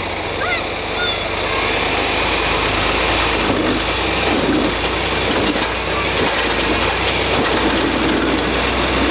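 John Deere farm tractor with a front loader, its engine running steadily as it is driven slowly, getting a little louder about three seconds in.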